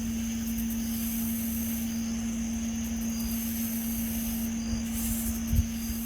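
Steady unexplained droning hum with a thin high whine above it, the 'nging' sound, over a low rumble and hiss; a single thump about five and a half seconds in.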